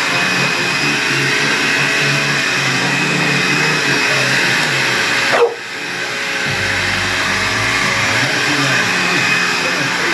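A vacuum cleaner's motor runs with a steady whine while a blue pit bull barks at it. About halfway through, the vacuum sound dips suddenly, then comes back.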